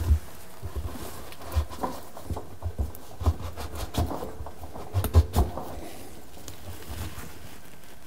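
Hand-scrubbing the rubber door seal of a front-load washing machine: irregular rubbing and soft bumps as the gasket is pulled back and worked, thinning out after about five seconds.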